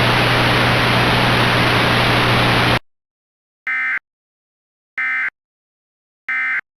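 Loud static hiss with a steady low hum that cuts off abruptly about three seconds in, followed by three short identical bursts of Emergency Alert System data tones: the end-of-message code that closes an EAS alert.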